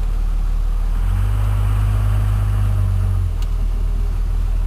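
A motor vehicle's engine idling with a steady low rumble. It grows louder for about two seconds from around a second in, then settles back.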